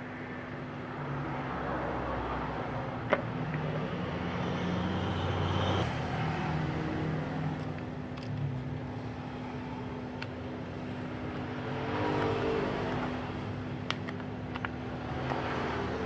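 Background road traffic swelling and fading, over a steady electrical hum, with a few sharp clicks.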